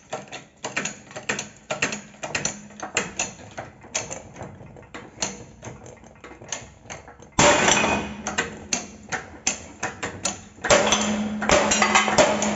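Repeated metal-on-metal hammer blows on a socket used as a drift, driving a stubborn, tight worn bushing out of a Ford Edge's rear curved suspension arm. At about two to three knocks a second. About seven seconds in, a much louder steady mechanical noise with a hum starts and the knocking goes on over it, stopping briefly and returning near the end.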